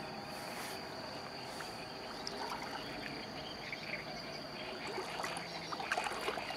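Crickets trilling in a continuous high-pitched drone, with a few faint small clicks near the end.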